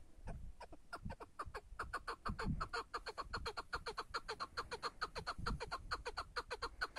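Chukar partridge calling a rapid run of clucks, about six or seven a second, sparse at first and then steady until near the end.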